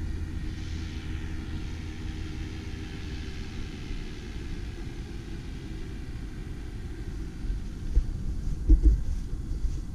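A distant paramotor engine drones steadily under a low rumble of wind on the microphone, with a few low gusty thumps near the end.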